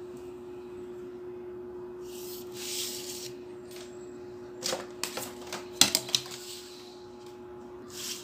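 A pencil scratches along a plastic set square as a straight line is drawn on paper. Then comes a quick series of clicks and knocks as the plastic set square and a ruler are picked up and laid down on the drawing board, the loudest about six seconds in. A steady low hum runs underneath.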